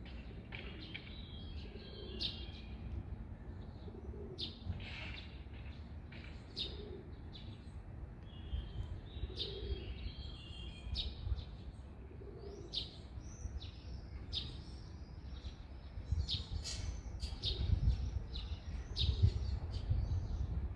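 Small songbirds chirping in many short, sharp high notes, with a soft low call repeating every two to three seconds through the first half. A steady low rumble runs underneath and grows louder near the end.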